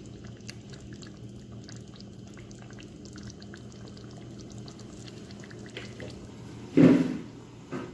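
Chicken curry cooking in a covered pan: faint bubbling and small pops over a steady low hum, with a brief louder thud near the end.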